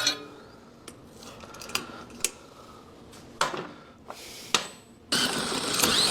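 Light metal clinks and knocks of hand tools on a small engine, then about five seconds in a loud steady whirring as the engine is pulled over on its recoil starter to check for spark with the kill wire disconnected.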